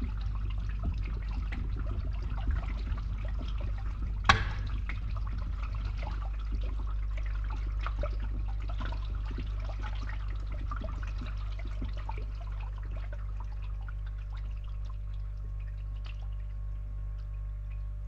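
Water draining and trickling through a pipe, with scattered drips, over the steady low hum of a running pump. A single sharp click comes about four seconds in, and the trickle thins out over the last few seconds while the pump hum carries on.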